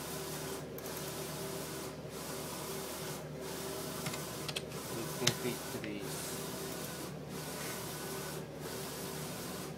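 Roland printer running a print job: a steady mechanical hiss from the print-head carriage that dips briefly about every second and a quarter, in time with the carriage passes. There is a single sharp click about five seconds in.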